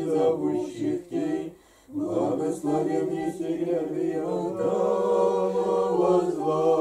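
A small church choir singing Orthodox liturgical chant a cappella, unaccompanied voices in harmony. It breaks off briefly about two seconds in, then goes on in long held notes.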